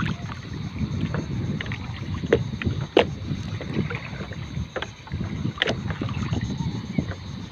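Seawater sloshing and splashing around a person standing waist-deep while working a fishing net by hand, with wind rumbling on the microphone. A few short, sharp splashes stand out.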